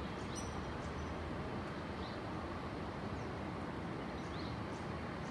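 Outdoor ambience: a steady low rumble of wind or distant traffic, with a few faint, short, high bird chirps scattered through it.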